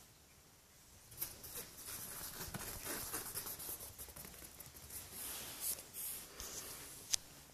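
Scratching and rustling of a kitten's claws on a fabric mat as it scrabbles about playing with a small fluffy toy, starting about a second in, with a sharp click near the end.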